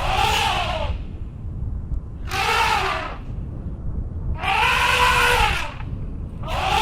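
Goat bleating loudly four times, about two seconds apart, each call rising and then falling in pitch, over a steady low rumble.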